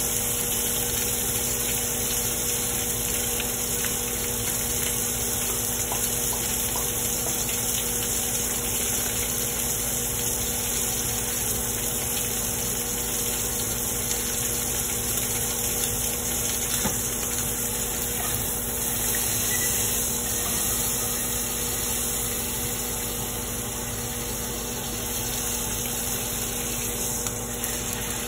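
Steak sizzling steadily in a foil-covered pan on a gas burner, a constant hiss over a low, even hum.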